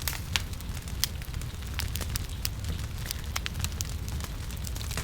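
Firewood burning in a wood stove, crackling with irregular sharp pops over a steady low rumble.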